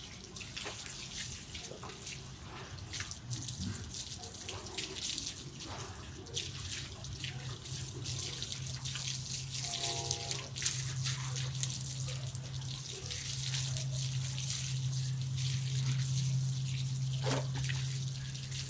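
Shower water running and spraying onto a dog being washed: a steady watery hiss over a steady low hum that grows louder partway through.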